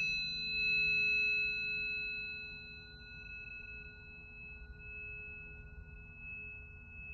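A struck planetary tuning fork ringing on with a steady pure tone and a few higher ringing overtones. The overtones and the overall level fade over the first few seconds, leaving a quieter, steady ring.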